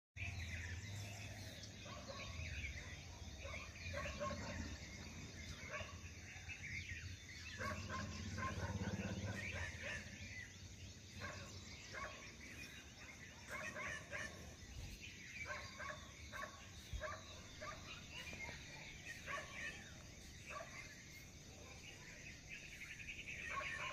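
Faint dogs barking repeatedly, in short scattered calls, over a low steady background rumble.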